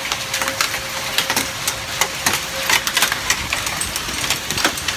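Hailstorm: hailstones hitting the ground and hard surfaces in many irregular sharp clicks and knocks over a steady hiss of rain.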